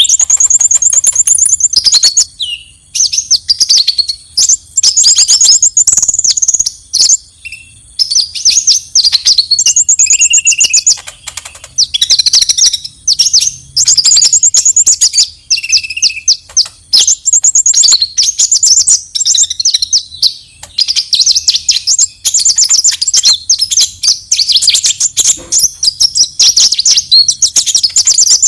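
Olive-backed sunbird (kolibri ninja) giving its aggressive fighting song: loud phrases of rapid, high-pitched trills and chatter, repeated with short pauses, with an occasional lower note.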